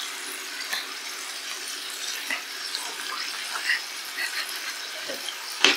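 Sliced meat frying in a frying pan: a steady sizzle with small crackles and pops, and one sharp clink near the end.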